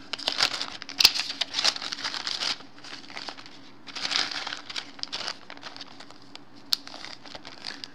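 Plastic zip-top bag crinkling and rustling as hands slip a rubber loop and a paper card into it, in two spells of dense crackle, with a sharp click near the end as the zipper strip is pressed shut.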